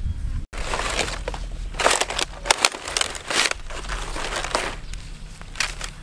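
Dry palm fronds crackling and rustling under a stingray as it is flipped over and handled on them, in a string of crunchy rustles loudest about two to three and a half seconds in. A brief dropout comes just after the start.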